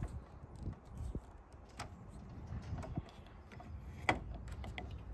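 Hand screwdriver turning a screw into a screen-door crossbar bracket: scattered small clicks and taps, the sharpest about four seconds in, over a low rumble.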